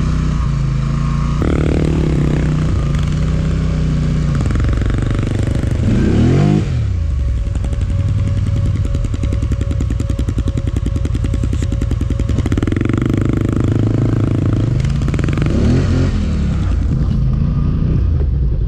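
Polaris ATV engine running under load through deep snow, revving up and easing off twice.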